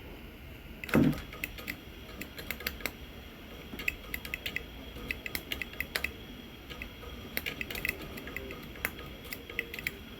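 A knock about a second in, followed by many small irregular clicks and taps.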